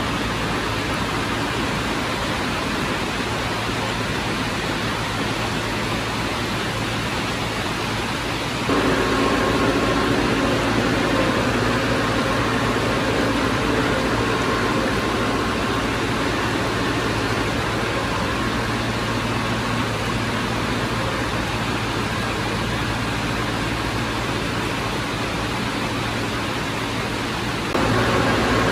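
Heavy earthmoving machinery running: a steady, noisy diesel engine drone. It steps up abruptly in loudness about a third of the way in, with the engine's tones coming through more clearly, and drops back shortly before the end.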